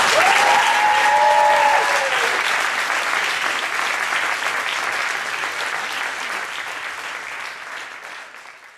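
Audience applauding, with a few voices calling out over the clapping in the first two seconds. The applause fades away near the end.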